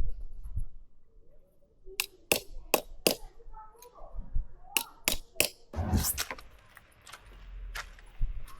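A string of sharp clicks and clacks of small hard objects knocking together: a few quick ones about two seconds in, and more about five seconds in.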